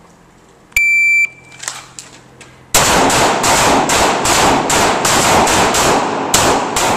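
Electronic shot-timer start beep about a second in, then from near the three-second mark a rapid string of more than a dozen handgun shots, several a second with brief gaps, each echoing into the next.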